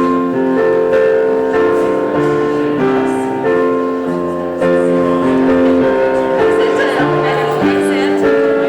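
Keyboard instrument playing slow, sustained chords that change about once a second, as church voluntary music.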